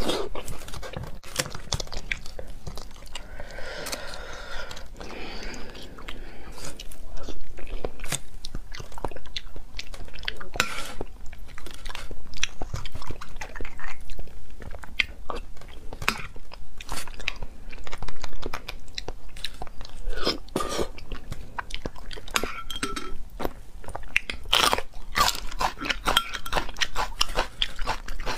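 Close-miked chewing and wet mouth sounds of someone eating braised beef bone marrow: irregular smacks and sharp clicks, over and over.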